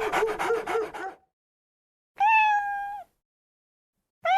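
A pulsing animal whine ends about a second in. Then a domestic cat meows once: a clear, steady call that drops in pitch as it ends. A second meow starts right at the end.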